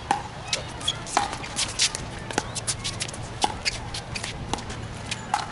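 A pickleball rally: hard paddles hitting the plastic ball back and forth in a quick series of sharp pops.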